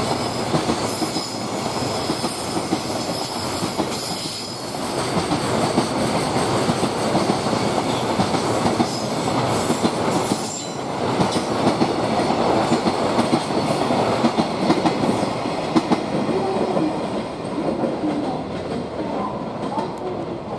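Freight train of container flat wagons rolling past: a steady rumble and clatter of steel wheels on the rails, dipping briefly twice and easing off near the end.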